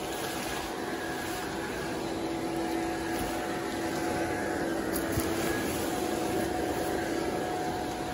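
Electric blower fan of an inflatable Reaper archway running steadily, a hum over rushing air as it fills the nylon figure.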